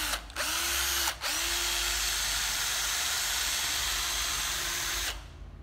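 Hitachi 12V cordless drill-driver running free with no load. Its motor cuts out briefly about a quarter second in and again at about a second, its whine rising back each time it restarts, then stops sharply about five seconds in.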